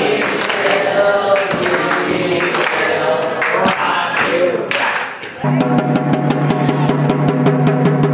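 A group of adults singing together while clapping along; about five seconds in it changes abruptly to a steady drum beat, several strikes a second, over a held chord.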